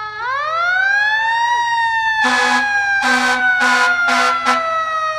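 Fire truck siren wailing, its pitch slowly winding down, while a second siren winds up sharply just after the start and levels off. Midway, the truck's air horn sounds four blasts, the last one short.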